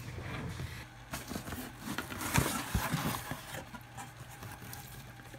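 Cardboard shipping box opened by hand, its flaps and the paper and plastic packing inside rustling and scraping, with a few light knocks.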